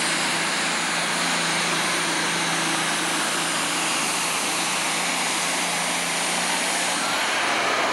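Super stock pulling tractor's turbocharged diesel engine running flat out under the load of the weight sled: a loud, steady roar with a faint high whine on top. About seven seconds in, the steady engine note drops away.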